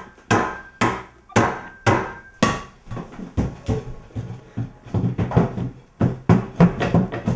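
Sharp, ringing knocks in a steady beat of about two a second. From about five seconds in they give way to faster, denser knocking with a low thud under each hit.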